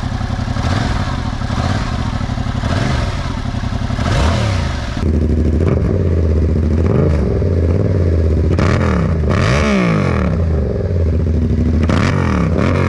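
Yamaha R7's 689 cc parallel-twin engine running through an SC Project full exhaust system. The engine pitch rises and falls several times as it revs up and drops back.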